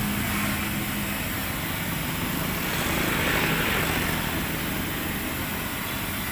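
Steady hiss and low rumble from a wok of hot frying oil on its burner, with no distinct knocks or clatter.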